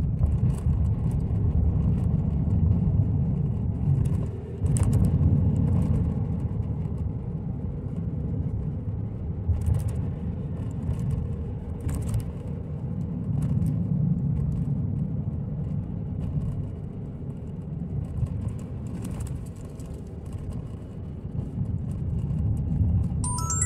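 Road noise heard inside a moving car's cabin: a steady low rumble of tyres and engine, with a few light clicks scattered through it.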